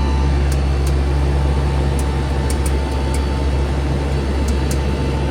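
Lasko portable heat pump running in heat mode with its coils iced over: a steady, loud machine hum, with about eight sharp little ticks of ice crackling scattered through it.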